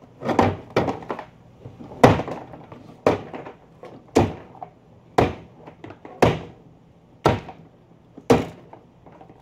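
A wooden board striking a camcorder over and over, about one heavy blow a second, with two quick hits close together near the start. Each blow is a sharp thunk with a short ring.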